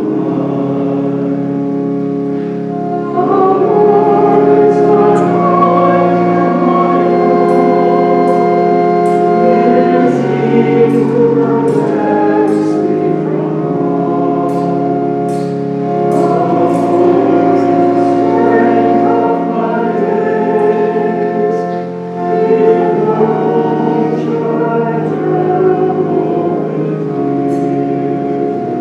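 A hymn sung over organ accompaniment: held organ chords, with a singing voice coming in about three seconds in and pausing briefly between phrases.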